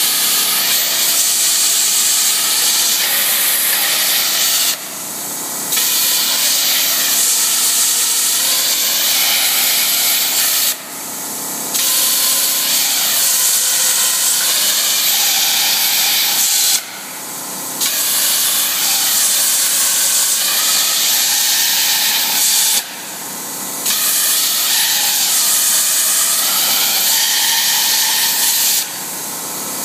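CNC plasma cutter's arc hissing as it burns holes through a metal tube. About every six seconds the arc cuts out for roughly a second between holes, then strikes again.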